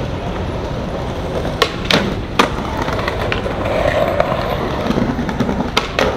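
Skateboard wheels rolling over rough pavement, with several sharp clacks of the board popping and landing around two seconds in and again near the end, and the board scraping against a concrete ledge.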